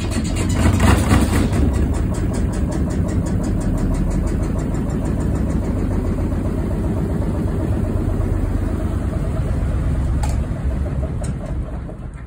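Washing machine running loudly, a steady machine rumble with a fast, even rattle, winding down near the end.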